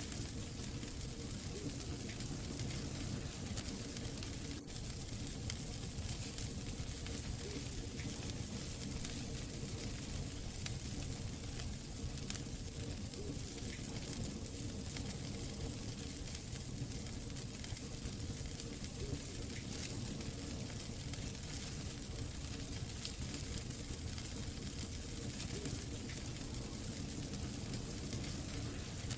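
Wood fire burning in a fireplace: a steady hiss and low rumble with scattered small crackles and pops.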